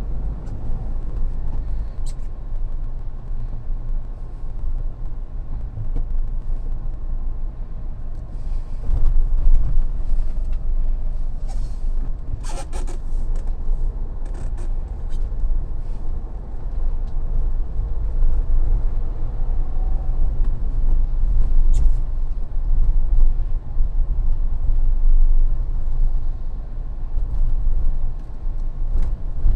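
Mahindra Thar driving: a steady low road and engine rumble, with a few short sharp knocks or clicks, most of them in a cluster about twelve seconds in.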